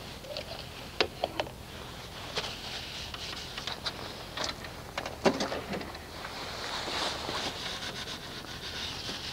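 Knocks and clatter of a Honda HRX217 push mower being lowered from its side back onto its wheels, with the loudest knock about five seconds in, then a soft rubbing near the end as a gloved hand works by the engine.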